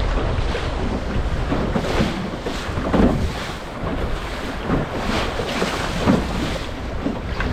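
Strong wind buffeting the microphone with a low rumble, over water rushing and splashing against a small sailing dinghy's hull in choppy waves, in irregular surges.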